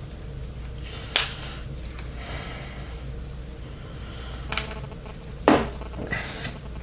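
Three sharp clicks or taps, about a second in and twice around the fifth second, with softer rustling after, from cables and parts being handled while wiring a PC case, over a steady low hum.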